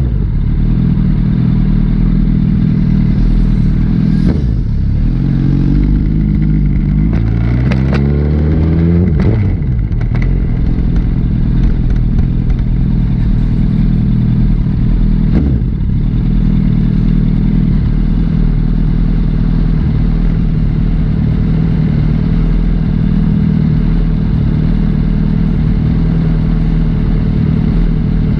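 Liter-class sport motorcycle engine under way. About five seconds in it speeds up, its pitch climbing for several seconds, then drops off sharply about nine seconds in and settles into a steady cruise.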